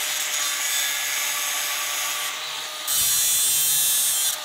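Angle grinder with a 3M Cubitron 3 cutoff wheel cutting through a tack weld on a steel pipe, the motor whine holding steady under the grinding. About three seconds in the cut turns louder and harsher for over a second.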